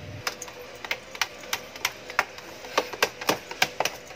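Sharp, irregular clicks and scratches, about three a second and loudest in the second half: a dog's claws on the plastic floor of a whelping box. This is the nest-digging of a Shih Tzu in labor.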